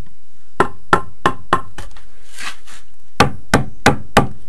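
Club hammer knocking down on a gas-silicate (aerated concrete) block to bed it into its thin glue joint: a run of about five sharp knocks, a pause, then four more.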